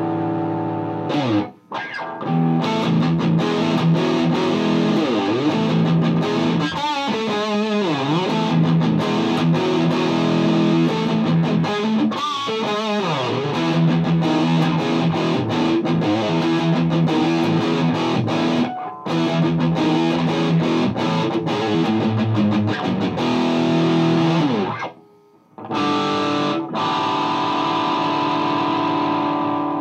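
Gibson Les Paul electric guitar played through a Mesa Boogie Dual Rectifier tube amp in channel 2's Vintage mode at 100 watts, into a Marshall 1960A 4x12 cabinet: distorted sustained chords and riffs. Two passages of wavering bent notes, a brief stop about a second and a half in and a short break around 25 seconds, then a held chord ringing out.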